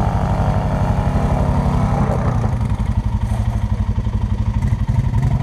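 ATV engine idling up close: a steady, fast low putter that drops slightly in pitch about two seconds in.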